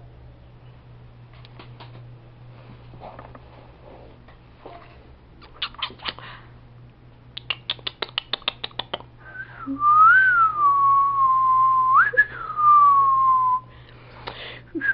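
A person whistling in long sliding phrases, each jumping up in pitch and gliding back down, with a short break before the last. Before the whistling comes a quick, even run of sharp clicks.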